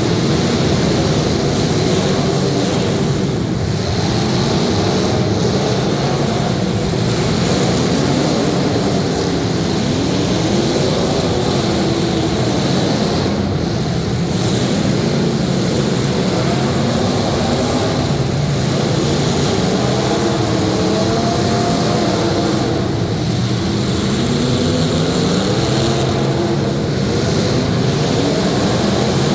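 Several demolition derby cars' engines running and revving at once, their pitches rising and falling continually and overlapping over a steady loud rumble.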